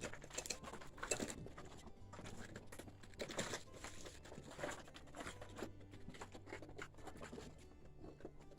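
Soft, irregular clicks, scrapes and rustles of people shifting about and handling gear on rough rock, over a faint steady low hum.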